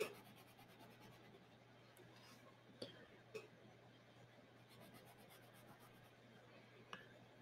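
Faint scratching of a crayon being rubbed across sketchbook paper while shading, with a few light clicks.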